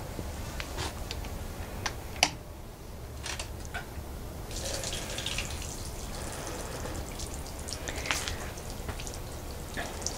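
Water trickling and dripping in a two-tier garden fountain, with scattered sharp clicks. The splashing hiss grows fuller about halfway through.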